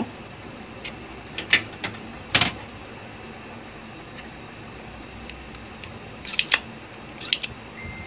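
Scattered small clicks and taps of tools against a USB port and its small circuit board during desoldering: a few in the first half, a pair about six and a half seconds in and one more near the end, over a faint steady background.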